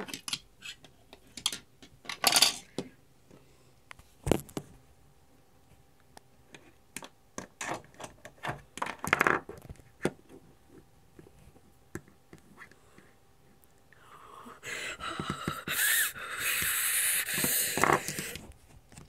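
Toy horse figurines being knocked and tapped against a wooden table, a scattering of short clicks and clatters. About three quarters in, a louder stretch of rustling noise takes over.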